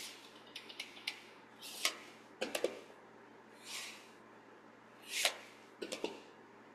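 Soft clicks and taps of plastic VHS tape cases being picked up and handled, in small clusters, with a couple of soft breathy puffs in between.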